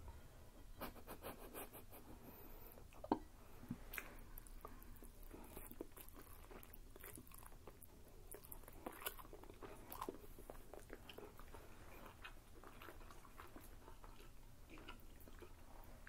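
Faint mouth sounds of people chewing and eating pismaniye (Turkish cotton candy): soft wet smacks and small clicks, with one sharper click about three seconds in.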